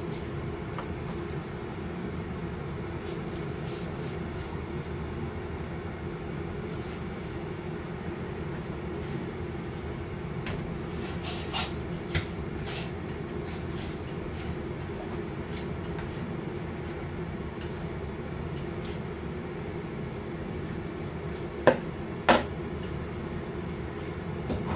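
Steady hum from the lit gas stove under a pot of water, with a few light clinks of chopsticks and cookware. Two sharp knocks sound about three seconds before the end.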